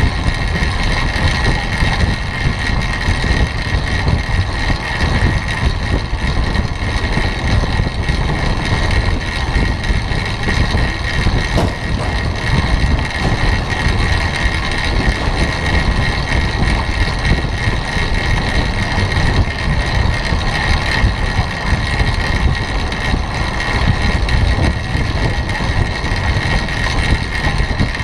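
Steady wind rush buffeting the microphone of a camera carried by a track cyclist riding at about 25 mph on a wooden velodrome track. A constant high whine runs underneath.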